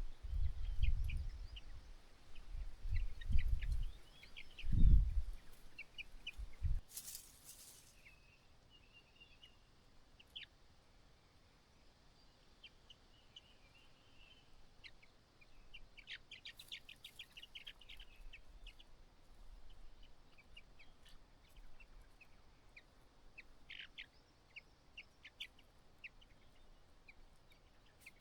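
White-browed laughingthrushes giving short, repeated chirping calls scattered throughout. Low, heavy rumbling thumps fill the first several seconds, the loudest sound here, and a brief rustling hiss comes about seven seconds in.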